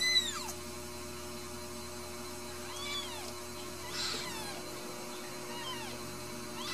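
Newborn Ragdoll kittens mewing: about five short, high-pitched mews, each rising and then falling in pitch, the loudest right at the start. A faint steady electrical hum runs underneath.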